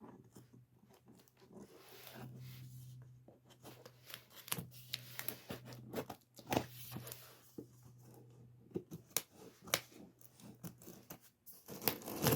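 Cardboard box and packaging being opened by hand: tearing, rustling and crinkling with scattered sharp clicks and knocks.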